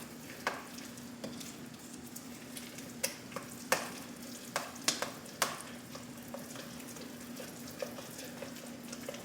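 A utensil stirring heavy cream into mashed potatoes in a bowl, a soft wet squishing broken by scattered sharp knocks against the bowl, over a steady low hum.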